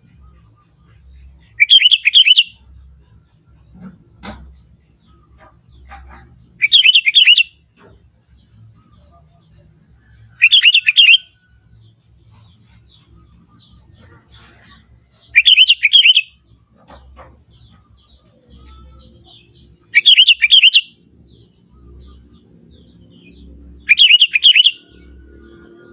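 Sooty-headed bulbul singing a short, loud phrase of rapid chirping notes six times, about every four to five seconds, with faint softer chirps between the phrases.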